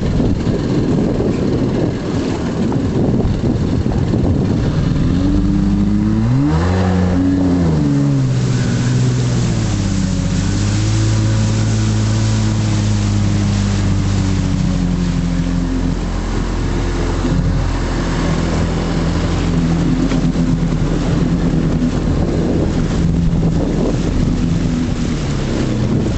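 Boat engine coming in about five seconds in, its pitch swinging up and down briefly before it settles into a steady drone, over a constant rush of wind and water.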